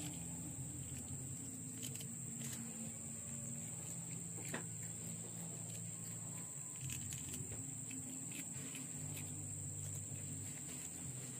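Insects chirring in a steady, high-pitched drone, over a low steady hum and a few soft clicks.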